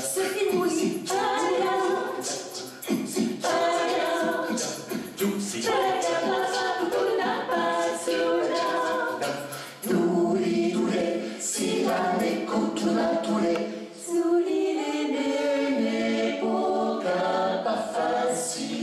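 A mixed group of men's and women's voices singing a cappella in harmony, with no instruments, amplified through headset microphones.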